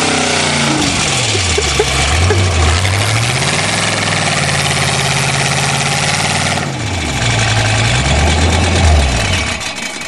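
An old Chevrolet sedan's engine revving hard, its pitch falling and climbing again several times as the wheels spin in wet grass and mud. A rushing noise of spinning tyres and flung dirt runs over it and eases about two-thirds of the way through, and the engine drops back near the end.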